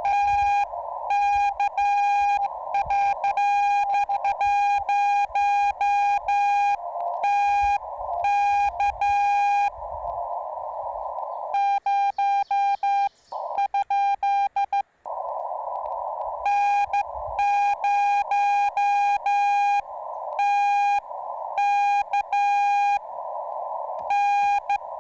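Morse code (CW) from a Yaesu FT-891 transceiver: a steady, mid-pitched beeping tone keyed on and off in dots and dashes, with receiver hiss filling the gaps between characters. About twelve seconds in, the keying changes and the hiss drops out for a few seconds before the hissy keyed tone returns.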